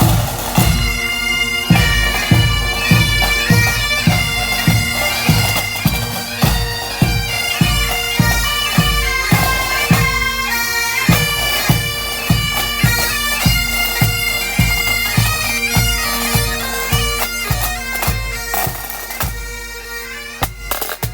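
Pipe and drum band playing: bagpipes sound a tune over their steady drones, with the bass drum beating evenly about twice a second. Near the end the pipes drop away, leaving the drums.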